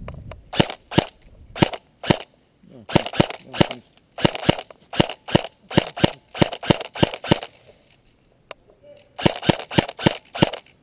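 Airsoft guns firing a string of sharp single shots in several volleys, about three a second, with short pauses between the volleys.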